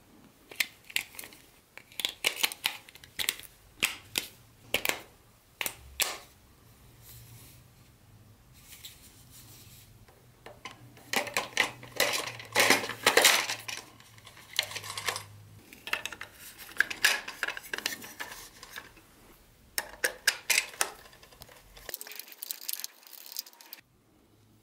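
C-cell alkaline batteries being pushed into the plastic battery compartment of a battery-powered toy train locomotive: a run of sharp clicks and clacks with short pauses, loudest around the middle.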